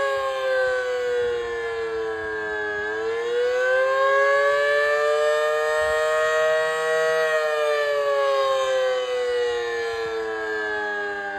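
Federal Signal Model 5BT omnidirectional outdoor warning siren sounding its wailing attack signal. Two notes sound together. Their pitch falls for about three seconds, rises for about four, then falls again near the end.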